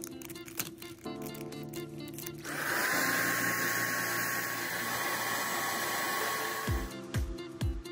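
Spray paint hissing in one steady burst of about four seconds, with a faint thin whistle, as a coat is sprayed onto a plastic speaker horn; background music plays underneath.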